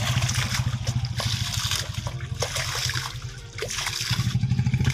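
Muddy water splashing and sloshing as hands and a metal pan scoop through a shallow pool, over the low, rapidly pulsing drone of a small engine that dips briefly about three and a half seconds in.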